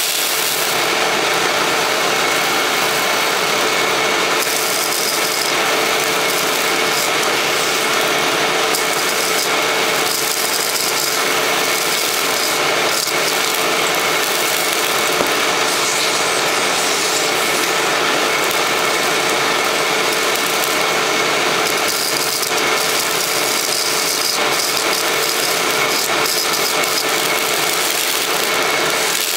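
Hoover WindTunnel self-propelled bagless upright vacuum (model U6630) running steadily: a constant motor hum and whine over the rush of airflow.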